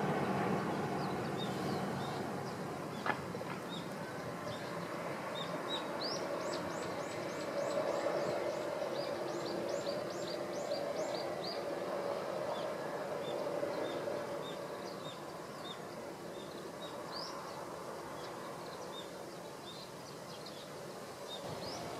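Small birds chirping in runs of short, high notes over a steady distant train rumble. The rumble eases over the first few seconds and swells again in the middle.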